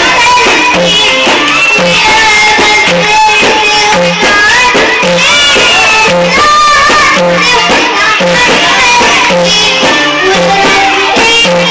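Music: an Arabic song with instrumental backing and a bass note on a steady beat.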